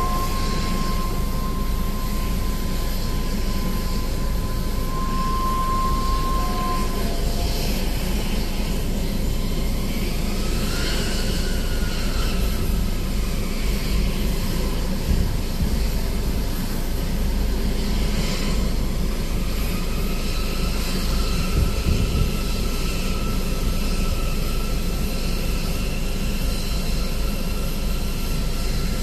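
Steady jet aircraft whine over a low rumble at an airport gate, heard from inside a vehicle's cabin. A steady high tone lasts for the first several seconds. A whine rises around the middle, and a fainter steady whine holds near the end.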